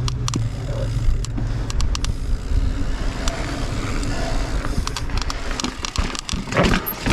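Mountain bike riding down a rocky trail: a steady low rumble of wind on the microphone and tyres on rock, with many scattered clicks and knocks as the bike rattles over the rocks.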